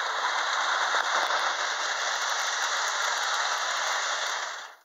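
Lionel 8203 toy steam locomotive running on its track while hauling seven cars, a steady hissing running noise that cuts off suddenly near the end.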